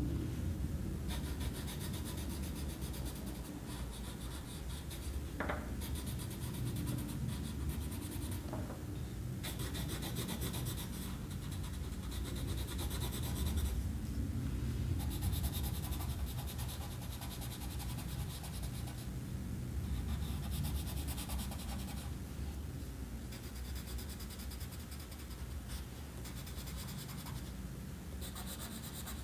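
Colored pencil shading on paper: scratchy back-and-forth strokes in runs of a second or two with short pauses between them, over a low steady rumble.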